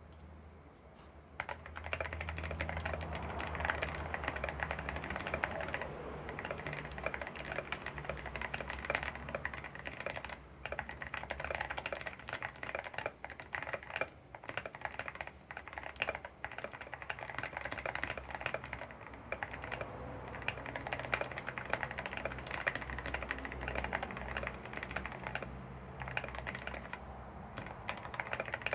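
Modded CIY Tester 68 mechanical keyboard being typed on, a fast continuous run of key clicks starting about a second and a half in.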